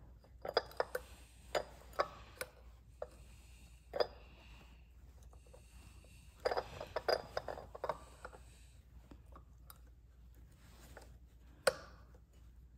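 Small metal clicks and taps, scattered, with a cluster a little past the middle, as a greased needle bearing and clutch drum are worked onto the clutch shaft of a Stihl MS 650 chainsaw by hand.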